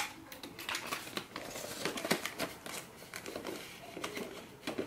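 A paper bill being slid into a clear plastic snap pouch in a ring binder: plastic and paper rustling and crinkling, with a string of small clicks and taps.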